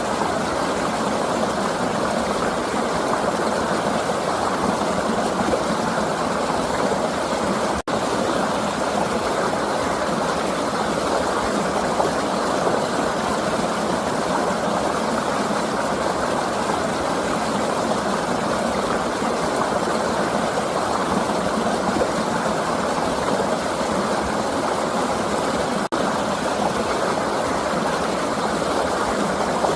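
River water flowing steadily, a continuous rushing noise that cuts out for an instant twice, about eight seconds in and near the end.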